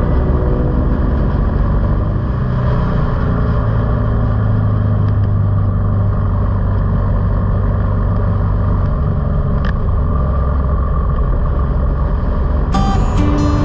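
A car being driven: steady engine and road noise with a low drone, and a single click about ten seconds in. Guitar music starts again near the end.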